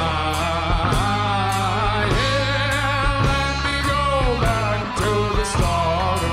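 Rock band playing live: electric guitars over a drum kit, with cymbal hits marking the beat.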